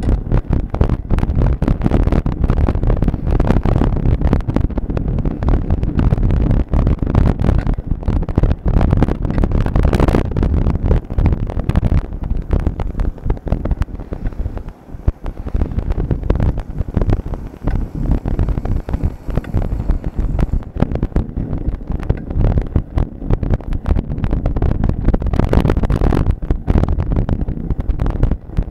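Wind buffeting the microphone of a camera carried on a moving bicycle, with many small knocks and rattles from road vibration.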